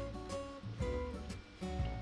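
Background music led by plucked acoustic guitar, with a new note or chord about every half second over a bass line.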